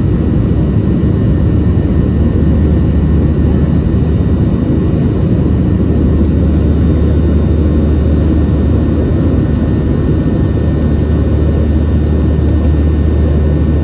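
Steady cabin roar inside a Boeing 737-700 climbing after takeoff, from its CFM56-7B turbofan engines and the airflow, with a strong low hum and no change in level.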